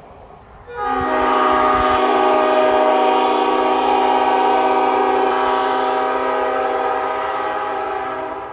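Nathan Airchime new-cast P5 five-chime train horn sounding one long blast: a full chord of steady tones that starts about a second in, holds, and tapers off near the end.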